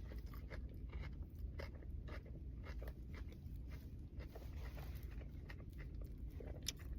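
Close-up chewing of a dry, crispy battered sausage: faint, irregular crunches and mouth clicks over a low steady hum.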